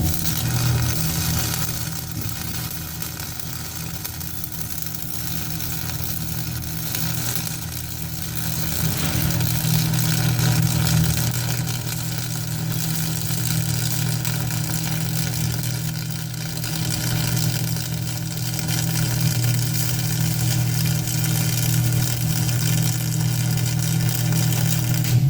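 Electric arc welding: the arc's steady crackling sizzle over the welding machine's low hum, swelling and easing slightly as the bead is run.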